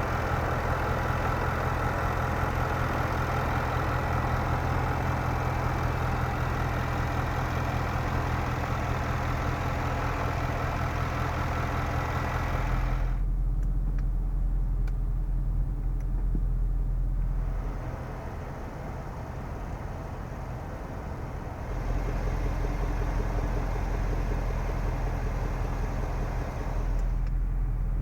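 2014 Range Rover Sport's 5.0-litre supercharged V8 running steadily without revving. About halfway through the sound turns deeper and duller, then drops quieter for a few seconds before the low rumble returns.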